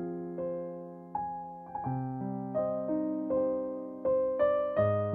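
Background piano music: single notes and chords struck about twice a second, each ringing and fading.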